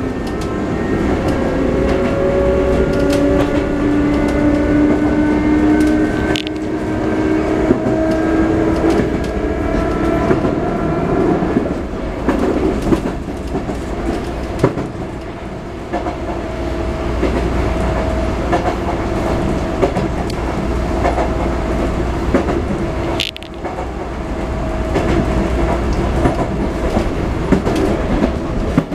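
Sotetsu 9000 series electric train heard from inside the car: the Hitachi IGBT-VVVF inverter and traction motors whine, the pitch rising over the first ten seconds or so as the train gathers speed, then holding steady. Under it runs a steady rumble of wheels on rails, with a couple of sharp clacks.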